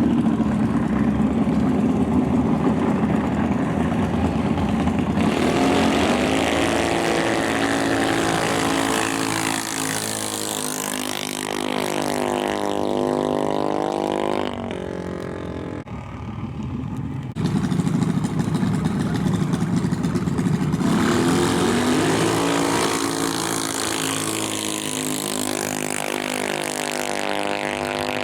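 Junior dragster's single-cylinder engine running hard, its pitch rising and falling. About halfway through it drops quieter for a few seconds, then comes back loud suddenly.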